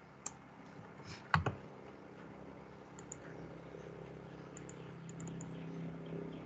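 Faint, scattered clicking at a computer as the lecture slide is advanced, with one louder knock about a second and a half in. A faint steady low hum comes up in the second half.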